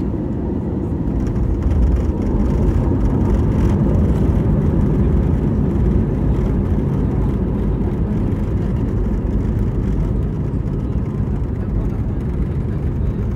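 Airbus A320-232's IAE V2500 jet engines in reverse thrust during the landing rollout, heard from inside the cabin: a loud, steady rumble that swells about two seconds in and eases slightly as the aircraft slows.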